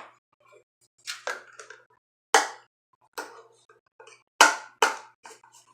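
A run of short, sharp knocks and clatters from things handled on a tabletop, about seven in a few seconds, with the loudest about two seconds in and again near four and a half seconds.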